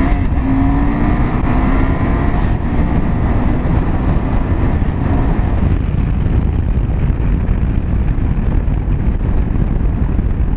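The KTM 790 Adventure's 799cc LC8c parallel-twin engine is accelerating hard through the gears. Its note climbs in pitch, with upshifts about two and a half and five and a half seconds in. After that a steady rush of wind and road noise covers the engine.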